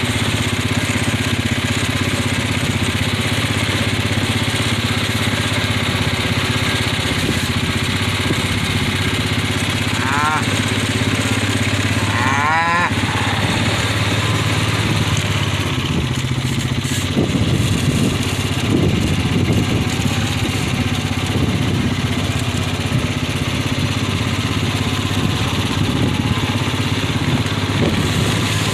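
A vehicle engine running steadily at a low idle-like speed. A cow moos twice over it, briefly, near the middle.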